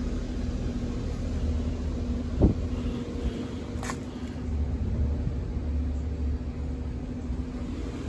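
A steady low hum from nearby equipment under a low rumble, with two light knocks about two and a half and four seconds in.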